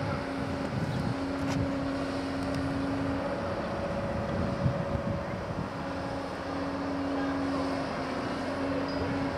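Caterpillar hydraulic excavator's diesel engine running steadily, with a droning hum that drops out and comes back several times.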